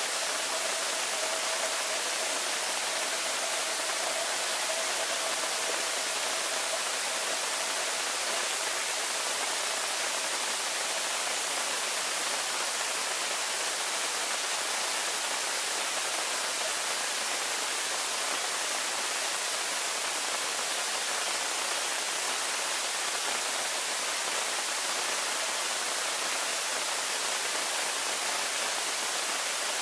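Steady hiss of pool water heard through a camera submerged at the bottom of a swimming pool, with a faint steady tone for the first eight seconds or so.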